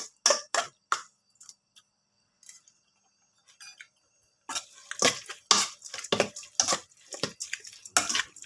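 Utensils clinking and scraping against a bowl as the salad is mixed: a few sharp clinks at first, a short pause, then a dense run of clinks and scraping from about halfway through.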